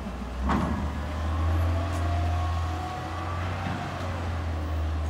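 Front-loading garbage truck's engine running as it pulls away, a steady low drone. A sharp knock comes about half a second in, and a faint whine is held from about two to four seconds in.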